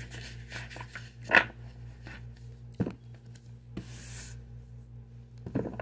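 Tarot cards being handled: soft rubbing and scraping of card stock with a few sharp taps, the loudest about a second and a half in, and a brief hiss near four seconds.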